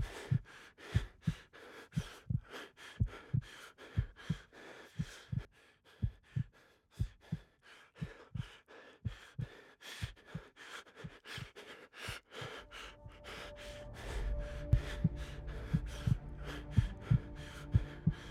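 Heartbeat sound effect, a double thump about once a second, under quick footfalls of someone running on asphalt. A low, dark music drone comes in about two-thirds of the way through, with the heartbeat carrying on over it.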